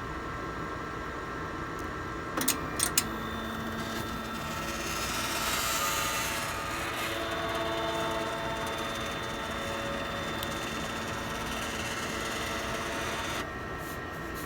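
Stepper motors of an FLSun delta 3D printer running as the print head moves, a whine of several tones that shift in pitch for about eleven seconds and stop abruptly near the end. A few sharp clicks come just before the motors start.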